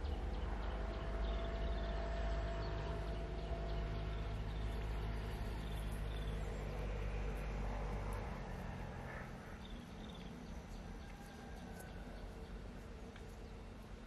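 A motor or engine running with a low, steady hum that fades away after about eight seconds, while birds chirp in short high notes.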